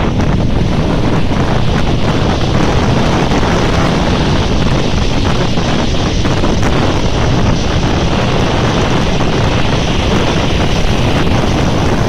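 Strong wind buffeting the microphone in a steady rush, over large storm waves breaking and washing up a shingle beach.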